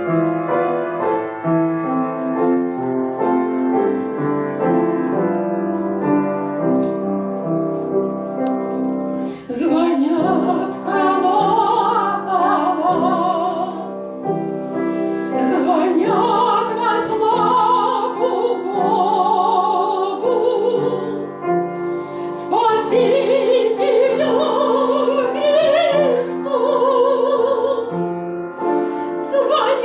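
A piano plays a slow introduction of repeated chords. About ten seconds in, a woman's voice enters singing in a classical style with strong vibrato, accompanied by the piano.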